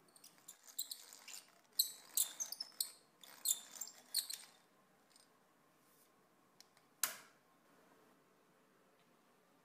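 Geared hand drill boring a small hole into a walnut razor scale: a few seconds of crackly, scratchy cutting in short bursts as the bit chews through the wood, then a single sharp knock about seven seconds in.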